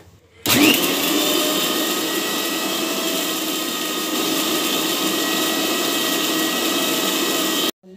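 Electric mixer-grinder motor grinding coconut chutney in its jar: it switches on suddenly about half a second in, runs at a steady pitch, and cuts off abruptly just before the end.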